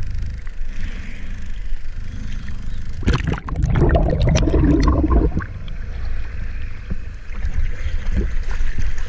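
Water sloshing and rumbling against a mask-mounted action camera at the sea surface. About three seconds in the camera goes under, and there are about two seconds of crackling, gurgling bubbles before it comes back up to the sloshing.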